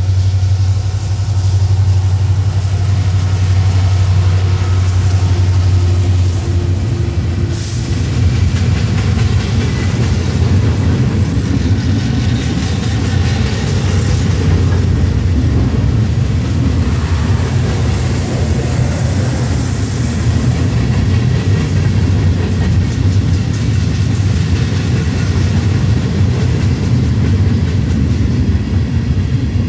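Freight train passing: an EMD SD70ACe diesel locomotive's low engine drone is heard first. About seven seconds in it gives way to the steady rumble and rattle of open-top freight cars rolling by on the rails.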